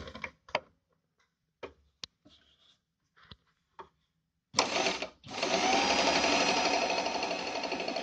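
Pfaff 294 sewing machine: a few scattered clicks as a dial on the machine is turned, then about four and a half seconds in the machine starts with a jolt, stops for a moment and runs steadily, stitching through the fabric.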